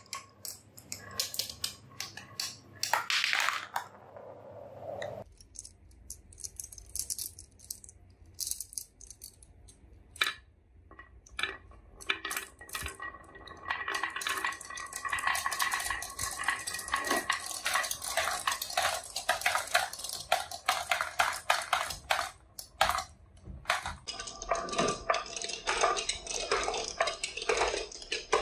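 Glass marbles rolling down wooden marble-run tracks, clicking and knocking against the wooden baffles and each other. The clicks are scattered at first, then about halfway through many marbles run at once in a dense, continuous clatter.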